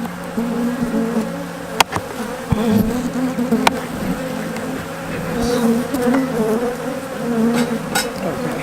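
Many honeybees buzzing around an opened hive: a dense, wavering drone. A few sharp clicks cut through it.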